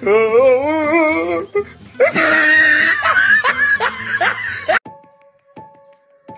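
Laughter: a wavering, pitched laugh for the first second and a half, then a louder, noisier burst of laughing. It cuts off abruptly just before the end, giving way to sparse music with a plink about every 0.7 s.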